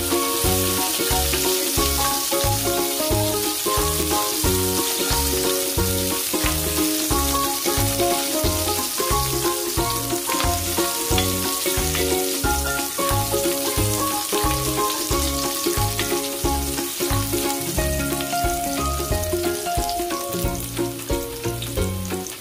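Garlic and onion sizzling in hot oil in an enamelled pot as they are stirred, a steady hiss. Background music with a steady beat plays throughout.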